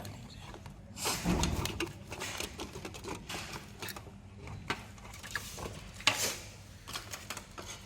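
Handling noise from computer hardware being fitted into a PC case: scattered clicks and light knocks of plastic and metal parts and cables, with two louder rustling scrapes about a second in and near six seconds.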